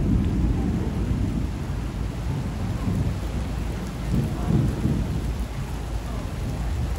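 Thunder rumbling, loudest right at the start and swelling again about three and about four and a half seconds in, over the steady hiss of rain.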